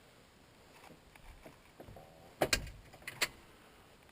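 Handling noises: a few faint clicks and rustles, then two sharp knocks about a second apart in the second half, the first preceded by a brief faint squeak.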